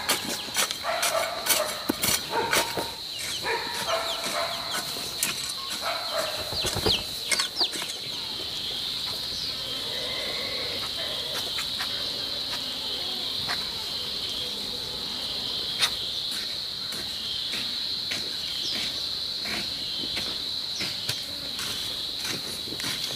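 Insects trilling steadily at a high pitch, with a garden hoe chopping into soil in repeated strikes through the first several seconds.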